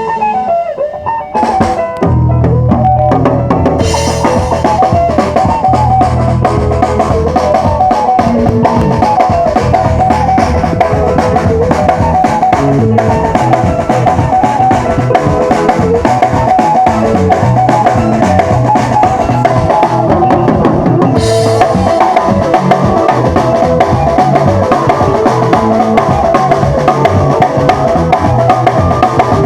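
Band music played loud at a sound check: a drum kit with bass drum and snare keeps a steady beat under a bass line and a busy melodic lead. The full band comes in about two seconds in.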